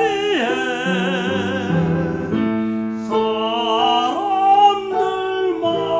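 Tenor singing a Korean art song in a classical style with wide vibrato, accompanied by piano. The voice breaks off briefly about halfway through while the piano holds on, then the next phrase begins.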